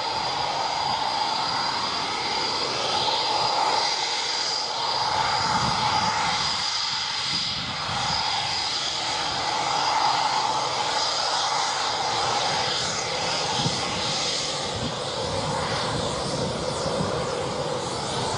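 A Eurofighter Typhoon's twin EJ200 turbofan engines running at taxi power as the jet turns onto the runway: a steady jet whine with a high tone and a lower one, swelling and easing slightly.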